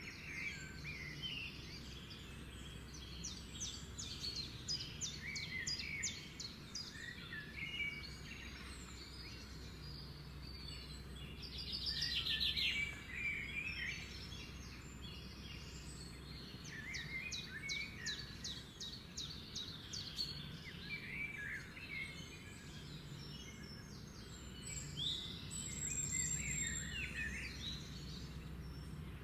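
Pet lovebirds chirping and twittering continuously, with bursts of rapid high trills; the loudest trill comes about twelve seconds in. A steady low hum sits underneath.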